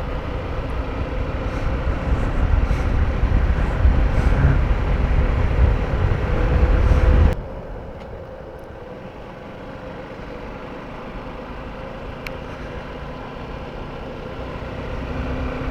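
Motorcycle riding on the road, its engine note steady under loud wind buffeting on the microphone; about seven seconds in the sound cuts suddenly to a quieter, steady ride noise.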